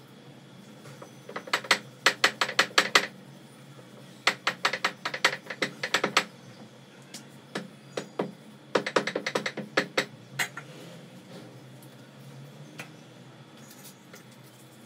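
Three runs of quick, sharp wooden clacks, several a second, from a rolling pin working roti dough on a board; each run lasts about two seconds.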